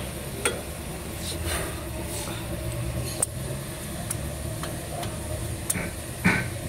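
A few sharp clicks and a short knock of metal parts as a brake caliper is worked over new pads onto a car's front brake disc by hand. The loudest knock comes near the end. A steady low hum sits underneath throughout.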